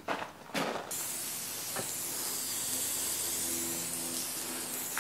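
Garden hose spray nozzle misting water over a paver floor: a steady hiss that starts about a second in, after two short knocks. The water is wetting the dry-pour concrete base beneath the pavers so that it sets.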